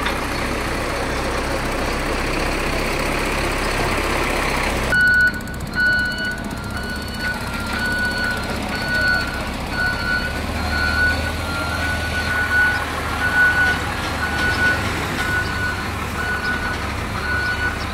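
A heavy diesel vehicle's engine running, then from about five seconds in a reversing alarm beeping over and over in a single high tone above the engine's rumble.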